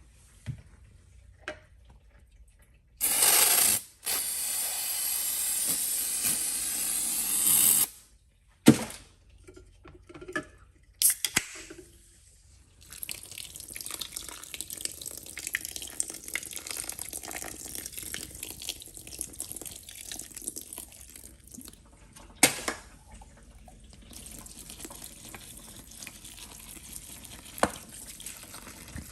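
Toilet flushing: a loud rush of water for about five seconds, followed by a few sharp knocks and then the tank refilling with a steady hiss.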